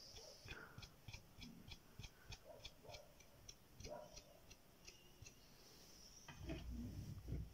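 Light rapid taps of a paintbrush being tapped to flick black paint spatter, about four taps a second, stopping about five seconds in. Near the end, a louder thump and handling noise as paint pots are picked up and set on the table.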